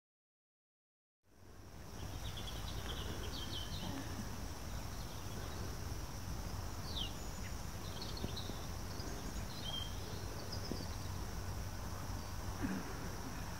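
Outdoor ambience fading in about a second in: a steady low rumble and an even high hiss, with scattered short bird chirps.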